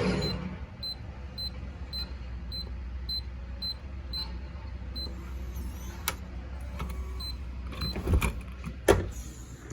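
Keypad digital deadbolt beeping once per key press as an eight-digit master code is entered, about one short high beep every half second, followed by a few sharp clicks near the end.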